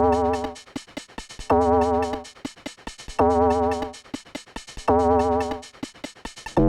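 Electronic music: a wavering synthesizer note over a low bass, repeating about every second and a half to two seconds, with short drum-machine hits in between.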